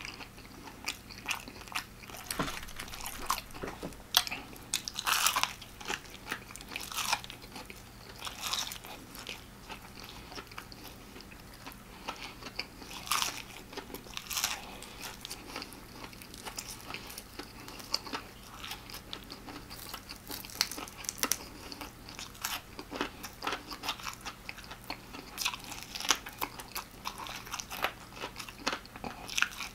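Biting into and chewing extra-crispy fried chicken: irregular crunches of the fried coating, spread across the whole stretch, between quieter chewing.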